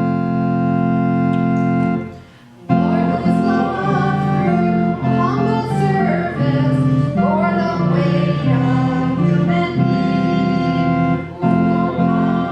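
Church organ holds the closing chord of a hymn introduction, stops briefly about two seconds in, then plays the hymn as the congregation starts singing.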